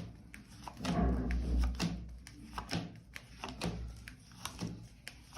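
Tarot cards being handled: a run of quick clicks and taps as cards are shuffled and laid on the table, with a low thump about a second in.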